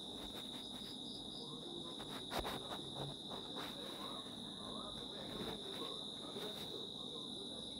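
A steady high-pitched tone with a fainter, higher one above it, over a low murmur. A few faint clicks come about two to three seconds in.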